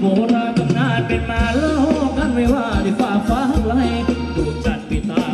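Live band playing Thai ramwong dance music: a steady drum beat under a sliding, ornamented melody line.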